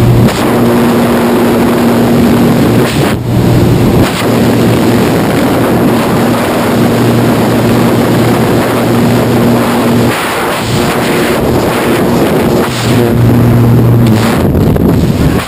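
Freefall wind rushing loudly over a camera microphone during a tandem skydive, with a steady low drone under it. The rush turns choppy about ten seconds in, as the parachute opens.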